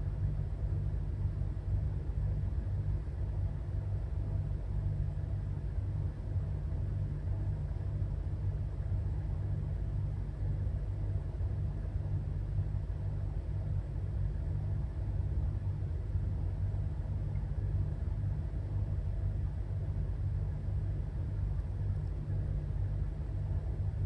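Steady low rumble with a faint, even hum, unchanging throughout and with no distinct events.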